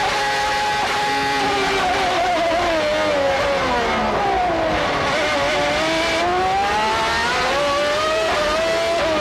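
Formula One race car engine at high revs, holding a steady high note at first, then dropping in pitch for a few seconds as the car slows and climbing again as it accelerates away.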